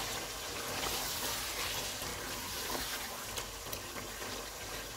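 Chicken korma masala sizzling in oil in a nonstick pot as it is stirred and fried with a spatula, with a few soft clicks of the spatula.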